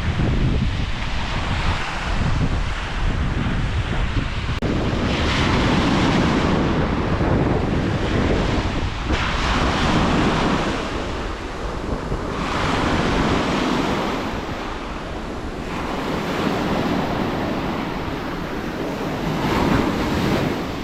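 Gusty wind buffeting the microphone: a loud rushing noise with a low rumble, swelling and easing every few seconds.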